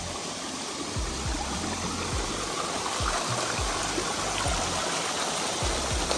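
Creek water running and trickling through a narrow channel in a rock creek bed, a steady rushing hiss. Beneath it, low bass notes with a repeating beat of background music.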